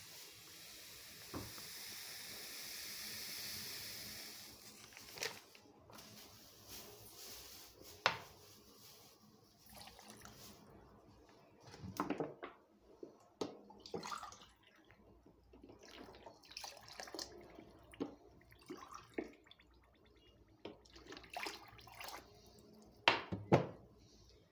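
Water being poured into a stainless steel pot of sugar to make syrup. A steady run of water lasts about four seconds, followed by scattered knocks and clinks of glass and metal on the pot, the loudest about halfway and near the end.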